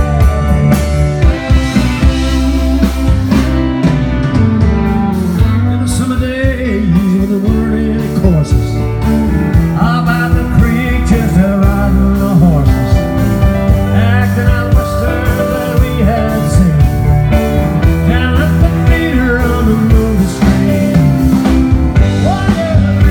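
Live blues-rock band playing, with electric guitars, bass and keyboards over a steady drum beat.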